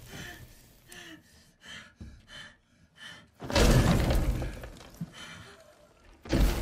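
Loud crashing impacts, each dying away over about a second and a half, one about three and a half seconds in and another near the end, with short gasping breaths in between.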